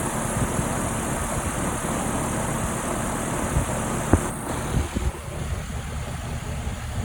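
HVAC compressor running with a steady mechanical hum and one sharp knock about four seconds in, after which the sound thins a little. The owner hears a weird noise and a kick like this when the R-410A suction pressure falls toward 150 psi, together with a pressure spike on the high-pressure line.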